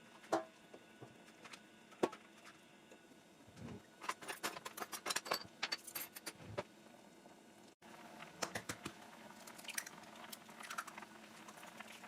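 Kitchen utensils and dishes clinking and clattering in short irregular taps, busiest in the middle.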